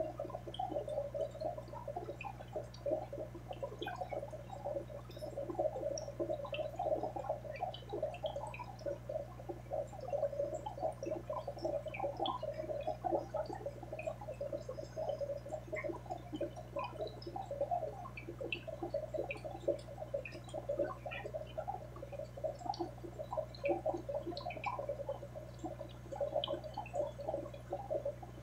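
Aquarium water bubbling and gurgling steadily, a dense patter of small bubbles and drips over a low steady hum.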